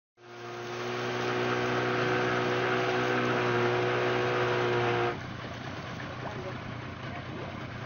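An engine running at a steady speed, swelling in over the first second; about five seconds in its steady tone cuts out abruptly, leaving a quieter, noisy background.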